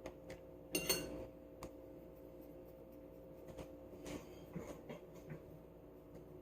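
A kitchen utensil clinking against a dish, one loud ringing clink about a second in and then several lighter taps and scrapes, over a steady low hum.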